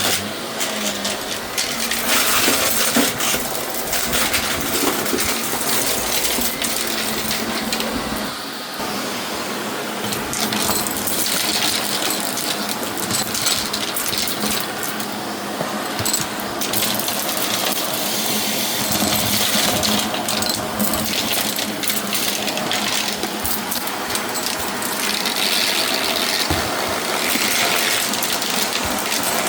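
Shark vacuum cleaner running steadily, its motor humming while picked-up debris rattles and clicks through it.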